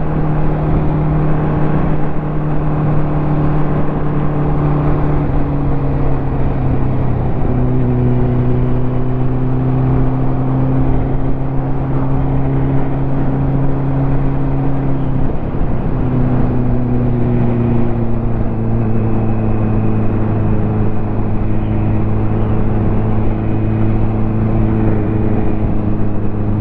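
Ducati motorcycle engine running under way, heard from the bike over a steady rush of wind and road noise. Its note drops in pitch abruptly twice, about 7 seconds in and again about 15 seconds in, then sinks slowly.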